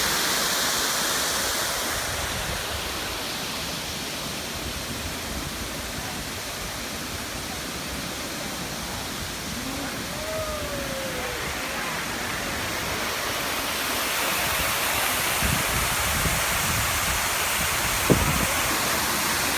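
Steady rushing of an artificial pool waterfall pouring into a swimming pool, growing louder in the last few seconds. A brief sliding high tone comes about halfway through, and a sharp knock near the end.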